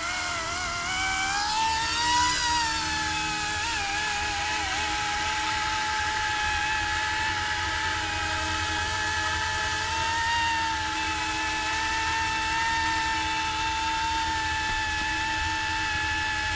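Small electric RC scale Coast Guard Jayhawk helicopter (F09-S) spooling up and flying: a high motor and rotor whine that climbs in pitch over the first two seconds, then holds fairly steady with slight wavers.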